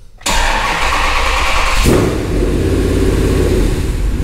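A swapped-in 5.7-litre HEMI V8 in a second-generation Dodge Ram 1500 starting up. It cranks and fires suddenly about a third of a second in, and about two seconds in it settles into a steady, deeper run.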